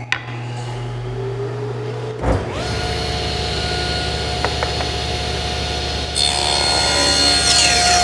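Table saw switched on about two seconds in, its motor coming up to a steady whine over a low hum that is already running. About six seconds in the blade starts ripping a cherry board lengthwise, adding a loud hissing cutting noise.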